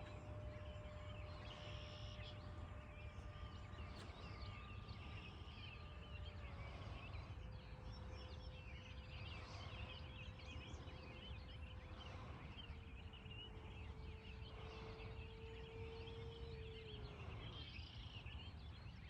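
Faint, steady whine of a 70mm electric ducted-fan RC jet flying at a distance, stepping down in pitch a few times and fading out near the end as the throttle comes back.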